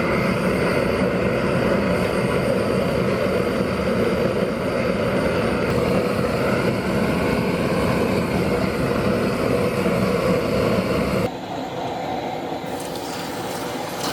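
Steady, loud running noise of workshop equipment. About eleven seconds in it cuts off abruptly and a quieter, scratchier sound takes over.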